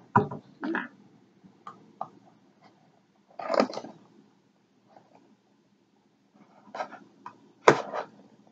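Cardboard mailer box being pulled and pried open by hand: irregular rustles and scrapes of the cardboard flap, with a sharp knock near the end.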